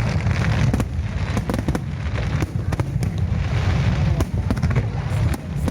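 Aerial fireworks display: a continuous deep rumble of bursting shells, with many sharp cracks and crackles, several a second, layered over it.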